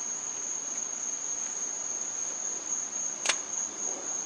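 Steady, high-pitched insect chirring, with one sharp click a little over three seconds in.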